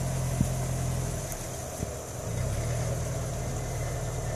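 Subaru Legacy GT's flat-four engine running at low revs as the car wades slowly through flood water; the engine note eases off about a second in and picks up again about two seconds later.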